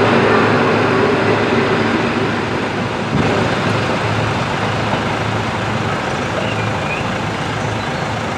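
Diesel railcar train running away from a level crossing, its engine hum and rolling noise fading, with a brief knock about three seconds in. The steady noise of road-vehicle engines waiting at the lowered barriers carries on under it.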